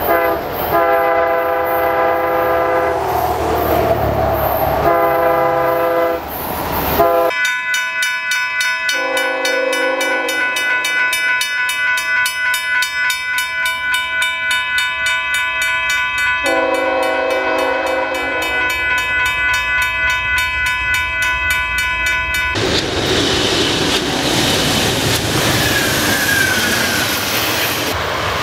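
Diesel locomotive horns. First an Amtrak passenger locomotive sounds a run of horn blasts as it approaches. Then, over a steady high ringing, Union Pacific freight locomotives give two long horn chords. Near the end a passenger train rushes past at speed with loud wheel and rail noise and a short high squeal.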